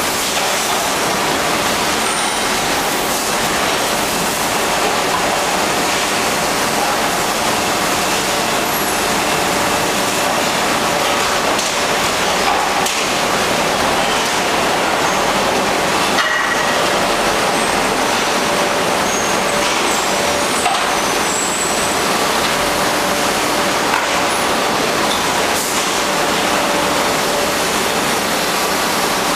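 Steady machine din of a large factory hall full of injection-moulding machines with gantry take-out robots: an even, loud hiss with faint steady hums underneath.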